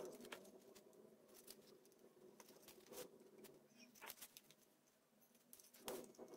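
Near silence, with a few faint clicks and rustles from hand-sewing an elastic band onto a shoe strap with needle and thread.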